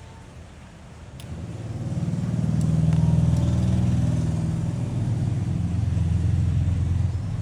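A motor vehicle's engine running, a low steady hum that swells up about a second in and then holds.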